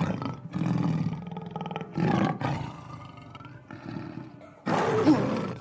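A lion roaring several times in a row, the last roar the loudest, near the end.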